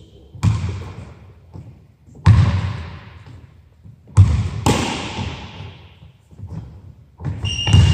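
Basketball bouncing on a hardwood gym floor: about five separate heavy bounces, each ringing on in the hall's echo. A short high squeak near the end.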